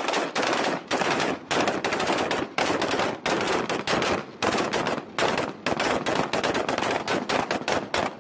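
Several carbines firing rapid, overlapping shots, so that the gunfire runs almost without a break.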